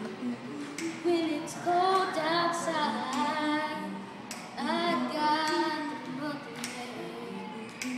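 Boys singing, their voices climbing to loud, high held notes about two seconds in and again around the middle, with a few sharp clicks between the phrases.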